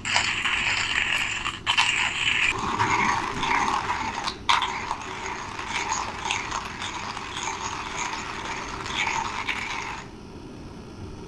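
Small gas canister camping stove burning under a metal pot of water: a steady hiss with many small ticks and crackles. The sound changes a couple of seconds in and drops in level near the end.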